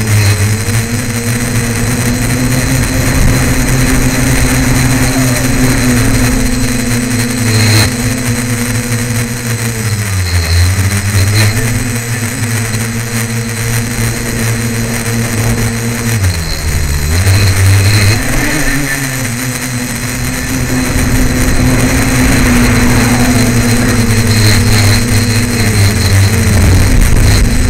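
A tricopter's electric motors and propellers hum steadily, heard close up from a camera on the craft, over a rushing hiss. The pitch drops sharply and climbs back twice, about ten and seventeen seconds in, as the throttle is eased off and opened up again.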